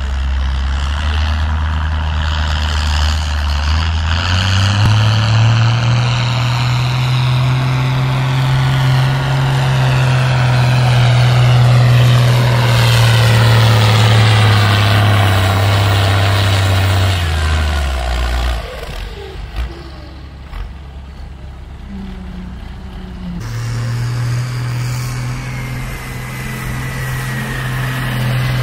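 Turbocharged Perkins 6354 six-cylinder diesel of a Massey Ferguson 698T pulling a sledge under full load. Its note rises a few seconds in and holds with a turbo whine over it, then drops away at about 18 s. From about 23 s another tractor diesel, a Ford 5000 fitted with a 7.5-litre Genesis engine, runs loud and steady, with a rising whine near the end.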